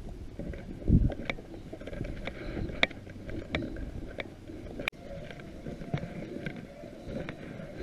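Beagle pack baying faintly in the distance while running a cottontail rabbit, under close crunching and sharp snapping of brush and twigs.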